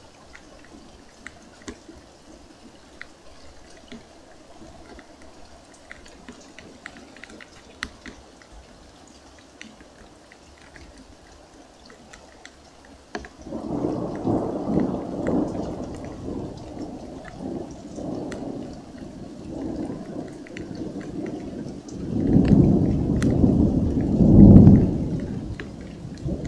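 Light rain dripping, with scattered drops ticking, then about thirteen seconds in a peal of thunder sets in suddenly. The thunder rumbles on in rolling waves and swells again to its loudest near the end.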